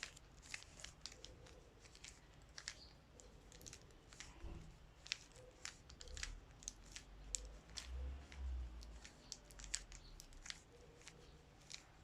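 Rubik's cube being twisted by hand: a quick, irregular run of plastic clicks and scrapes as the layers turn, working a move sequence to swap two last-layer corners. A low rumble comes in about six to nine seconds in.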